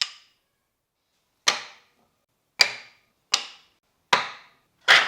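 Six sharp knocks, unevenly spaced about a second apart, each ringing briefly: freshly cut wooden pieces being set down on a hard surface.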